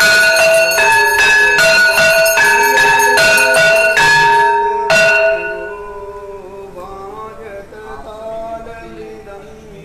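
Temple bells rung for the arati, struck at a steady rhythm of a little more than one strike a second, with two ringing pitches alternating. The strikes stop about five seconds in and the ringing dies away, leaving faint voices.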